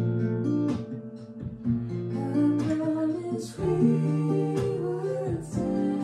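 Acoustic guitar strummed together with piano chords in a slow pop song, with a voice singing over them.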